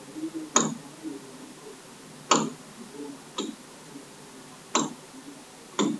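A stylus tapping and clicking on a tablet screen while writing: five sharp ticks at uneven spacing, about a second apart, over a faint low murmur.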